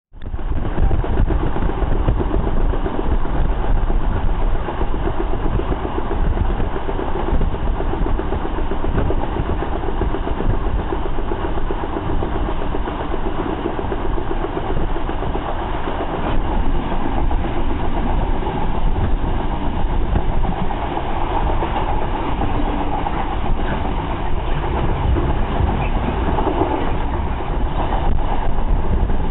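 Steady running noise of a railtour train at speed, heard from inside a carriage: wheels rumbling on the rails with rushing air.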